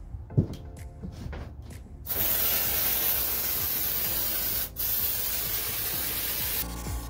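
A hand sprayer's nozzle hissing in one steady burst of about four and a half seconds, with a brief break partway through. Before it come a couple of seconds of light clicks and rattles.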